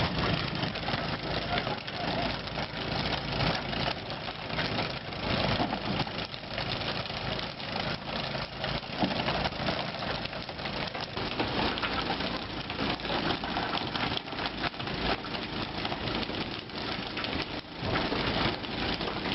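A fishing boat's engine running steadily under constant splashing of water, with scattered knocks.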